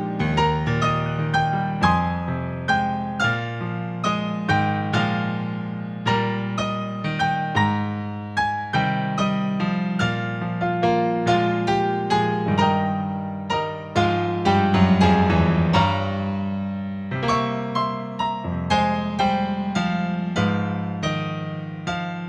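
Solo piano music: a steady flow of struck notes and chords, each fading away after it is played.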